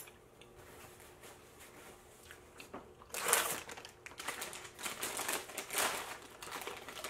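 Paper bag of breadsticks crinkling and rustling as it is picked up and pulled open, starting about three seconds in after a few faint clicks.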